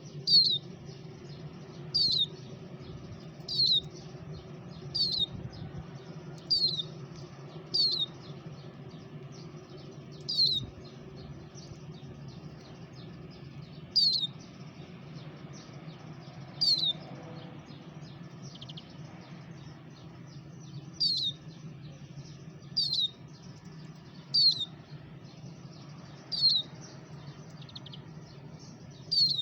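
A small songbird repeating a single short, high chirp that falls in pitch, one call every couple of seconds, over a steady low hum.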